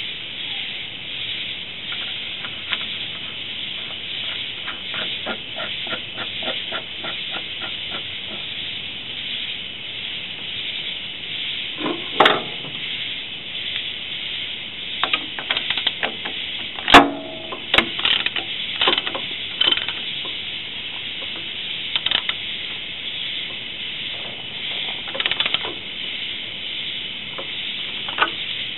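Socket wrench on the cap nut of a Belarus 250AS tractor's centrifugal oil filter cover, over a steady hiss. A few seconds in comes a run of evenly spaced light clicks, a few a second. From about halfway on come scattered sharp metal clicks and knocks, the loudest a little past halfway.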